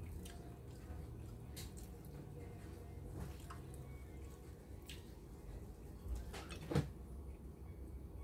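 Low, steady room hum with a few faint clicks and one sharper knock near the end, small handling noises while a person eats by hand.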